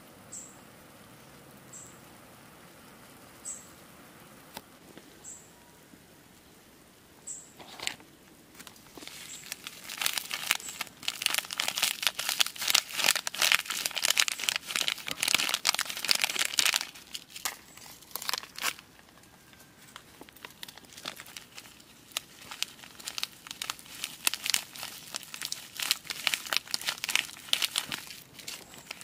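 Plastic food packet crinkling as it is handled and its contents shaken out over a pan, in two spells of dense crackling, the louder one around the middle. Before that, faint short high chirps repeat about every two seconds.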